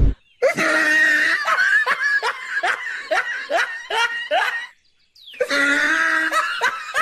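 Cartoon laughter sound effect: a voice laughing in quick repeated 'ha-ha' bursts, about two or three a second. It stops briefly around five seconds in, then starts again.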